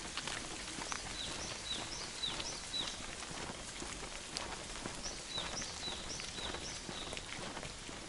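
Footsteps on a wet paved road in light rain, over a steady hiss of rain and dripping. A bird repeats a short high call several times in two runs, one about a second in and another at about five seconds.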